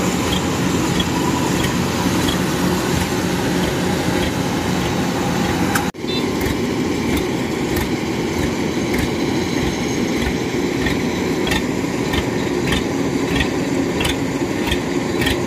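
Kubota DC-93 combine harvester's diesel engine running steadily as it harvests rice in a waterlogged paddy, briefly broken about six seconds in.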